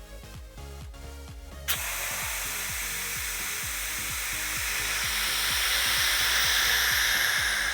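Air hissing into a vacuum chamber as it is vented, starting suddenly about two seconds in and fading near the end. Background music with a steady beat plays under it.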